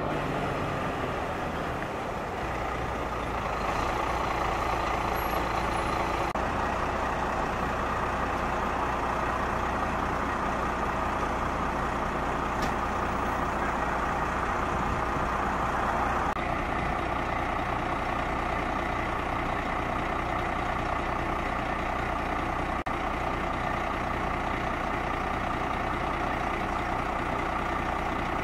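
Heavy diesel engines of fire trucks idling: a steady low hum under an even, unbroken rush.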